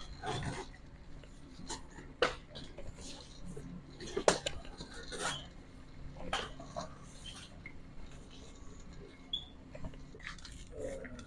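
Shop background: scattered clatters and knocks of handled goods over a steady low hum, with faint distant voices; the loudest knock comes about four seconds in.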